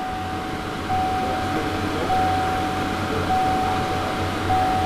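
Key-on warning chime of a 2018 GMC pickup with the engine off: one steady mid-pitched tone sounding in pulses of about a second, with short breaks between them. A low steady hum runs beneath it.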